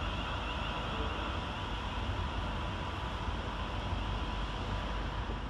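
Class 350 Desiro electric multiple unit running away along the line: a steady rumble of wheels on rail with faint steady electric tones over it.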